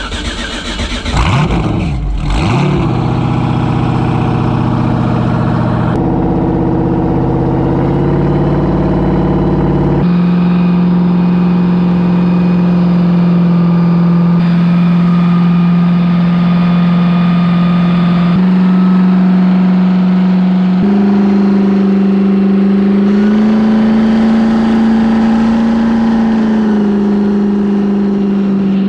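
6.0-litre LS V8 engine in a Yamaha WaveRunner FZR jet ski, revving up and down in the first couple of seconds as it gets under way. It then runs at speed with a steady note that shifts up in pitch a few times.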